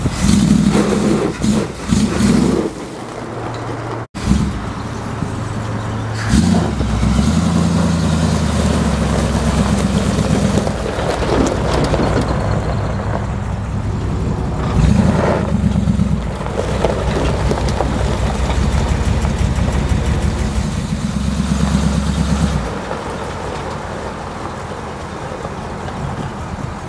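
Pickup truck engines running, the lifted Dodge W300 custom's V8 and the Dodge Ram dually, as the trucks drive slowly over gravel, with short rises in revs now and then. There is a sudden break just after four seconds in.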